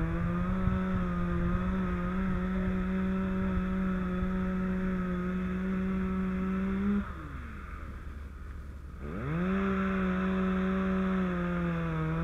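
Two-stroke power saw cutting a ventilation opening in a three-tab asphalt shingle roof, running at full throttle. About seven seconds in it falls back to idle, then revs back up two seconds later.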